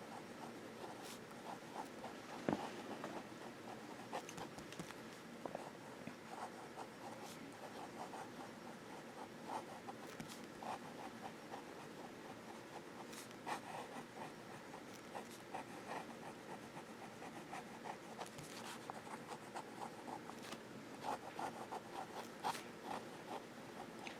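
Fountain pen nib writing on paper upside down (reverse writing), giving faint, irregular scratching strokes with an occasional sharper tick.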